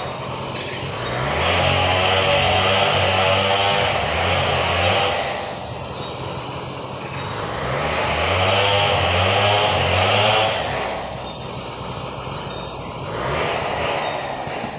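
Tropical forest ambience: a steady, high-pitched insect drone, with a lower motor-like drone that swells and fades every few seconds.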